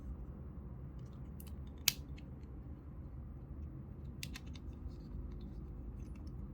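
A few small, sharp clicks as the side cover of a Kastking Kestrel Elite baitcasting reel is opened and the spool is taken out. There is one loud click about two seconds in and a pair of clicks around four seconds in, over a low room hum.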